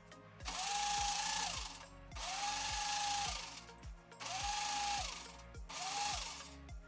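Kitchen mixer grinder with a stainless-steel jar, run in four short pulses to blend chopped lime pieces in water. In each burst the motor whines up to speed, runs for about a second, then winds down. Background music with a steady beat plays underneath.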